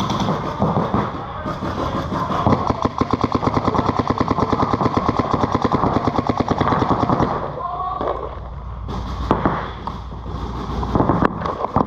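Paintball markers firing reball, a fast steady string of shots for about six seconds, then a few scattered single shots near the end.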